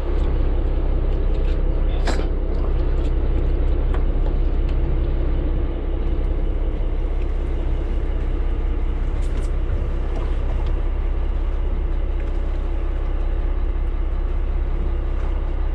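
Fishing boat's engine running steadily, a low rumble with a steady hum over wind and water. A single sharp click about two seconds in.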